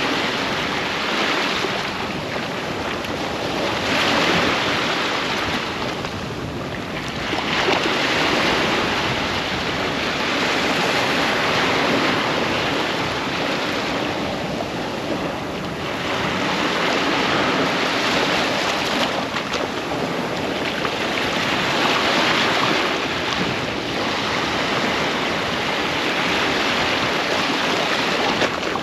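Ocean surf breaking on a sandy beach: waves crash and wash up the shore one after another, swelling about every four to five seconds over a steady hiss of foam.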